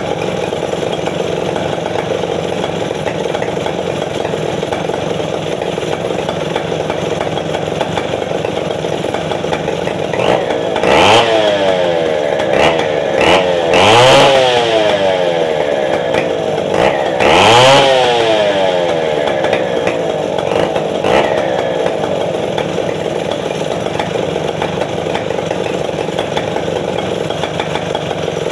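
Stihl 070 chainsaw's two-stroke engine idling as it warms up before work. In the middle it is revved up sharply four or five times, each rev rising and dropping straight back, then it settles to a steady idle again.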